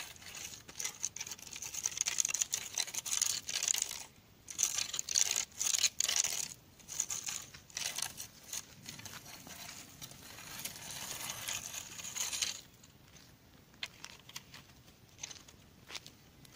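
Irregular rustling and crinkling with quick scuffs, louder for about the first twelve seconds, then dropping to fainter scattered clicks and scuffs.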